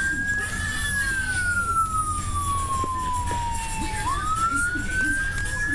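Emergency vehicle siren in a slow wail: one tone that rises, falls slowly for about three seconds, then climbs again near the end.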